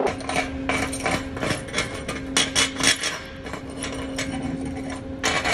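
Chipping hammer striking a stick-weld bead on a steel plate, knocking off the slag in quick irregular taps that come thick at first and then thin out. A steady hum runs underneath.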